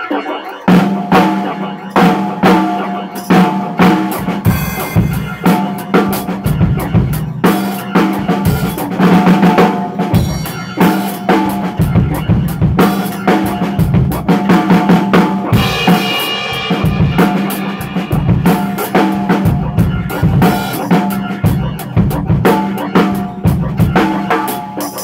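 Drum kit played in a busy, fast groove: bass drum, snare with rimshots and cymbal strikes, starting a little under a second in.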